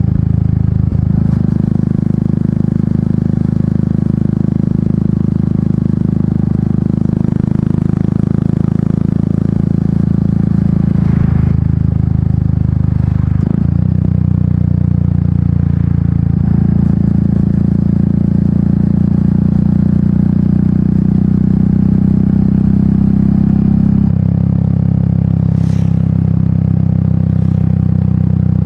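Royal Enfield Meteor 350's single-cylinder engine running through its aftermarket exhaust while riding, a steady thumping note whose pitch steps several times, with a short dip about thirteen seconds in like a gear change.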